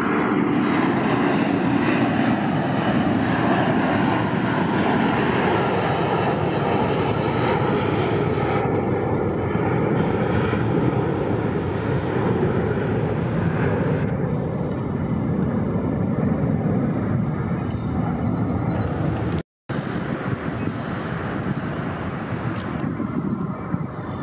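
Jet airliner climbing out after takeoff, a Boeing 757: a loud, steady rumble of its engines at takeoff thrust. The sound cuts out completely for a split second about three-quarters of the way through, then the same kind of jet noise resumes a little quieter.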